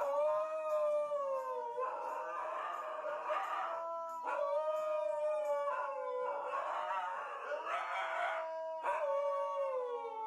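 Husky howling: a string of several long howls, each sliding down in pitch, with rougher, noisier stretches between them.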